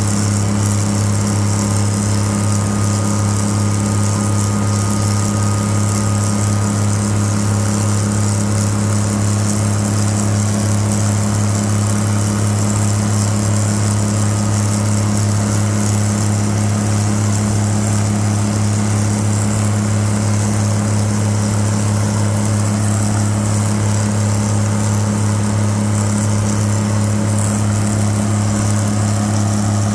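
Twin Cummins NTA-855-L4 inline-six diesel engines of a GE 80-ton center-cab switcher locomotive working hard under load on an upgrade, a loud, steady drone with a deep hum, heard close up from the locomotive's end platform.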